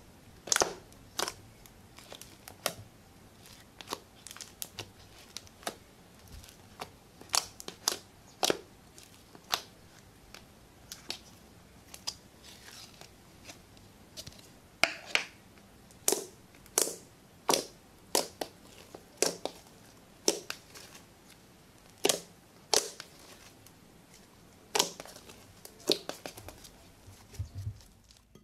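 Fingers poking and pressing thick green slime in a plastic tub, giving irregular sharp pops and crackles, about one or two a second.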